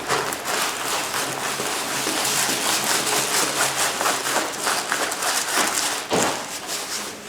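Continuous crinkly rustling of a diamond painting canvas and its plastic cover being handled, a dense crackle of many small clicks.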